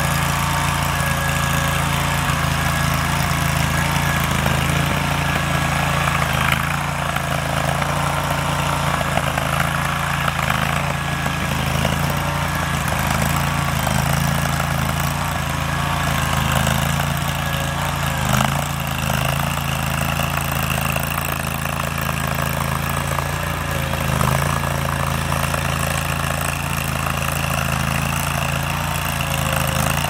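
Engine of a new AGROTK ride-on tracked mini skid steer loader running steadily while the machine is driven and its bucket raised. A faint high whine joins in a little past halfway.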